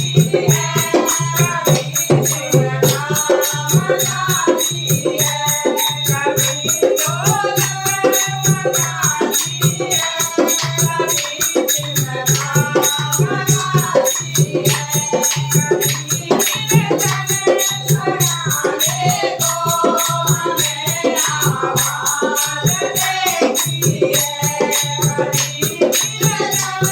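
Devotional bhajan music: a fast, steady rattle rhythm under a moving melody.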